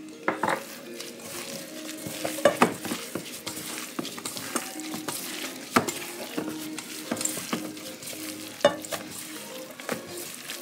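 Gloved hands squishing and mixing raw beef strips in a stainless steel bowl to coat them in marinade: a steady wet squelching, with a few sharp clicks of fingers and meat against the bowl.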